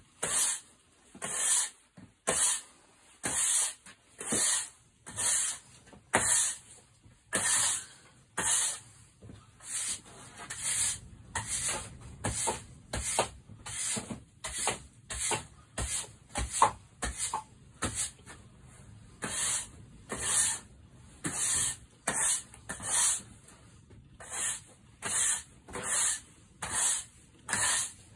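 Turned wooden spinning top spinning on the cardboard floor of a box. It makes a high, rubbing rustle that pulses about three times every two seconds. The cardboard drains its spin quickly.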